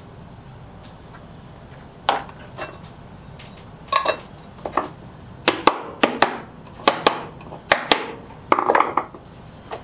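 Irregular sharp clicks and taps of small tools and containers being handled on a workbench, starting about two seconds in and coming faster after five, with a short scrape near the end. This is wood filler being scooped and worked at the bench.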